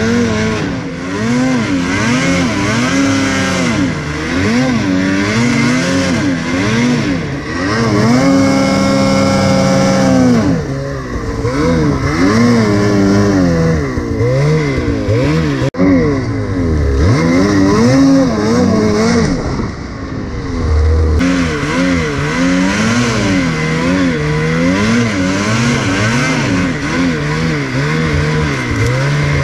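Ski-doo Freeride 850's two-stroke twin revving up and down over and over as the snowmobile is ridden through deep powder, with one longer high-rev pull about eight seconds in.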